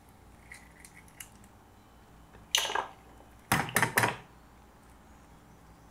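Eggs being cracked into a frying pan: a short crackle about two and a half seconds in, then a quick run of sharp clicks and taps about a second later.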